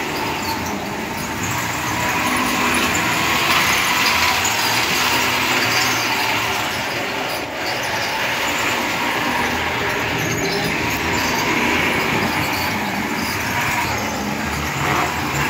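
Electric model trains running on a model railway layout: a steady whirr of the locomotive motor and rattle of the wheels on the rails, with a faint steady whine.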